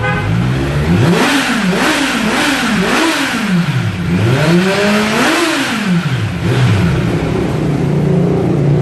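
Kawasaki Z900 inline-four revved at a standstill through an SC Project S1 slip-on exhaust: several quick throttle blips, then one longer, higher rev about five seconds in that falls back to a steady idle. The sound is held back by the stock header and catalytic converter still in place, which the owner says keeps it from coming out fully.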